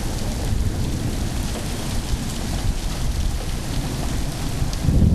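Steady rain falling in a thunderstorm, with a low rumble of thunder swelling near the end.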